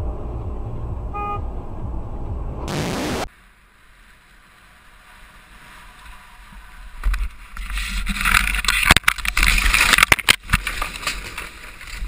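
Steady traffic rumble heard from inside a car, with one short beep about a second in. After a sudden cut, wind rushes over a helmet-mounted camera during a fast descent on snow. It swells in the second half and is mixed with knocks and clattering as the rider runs onto a wooden terrace.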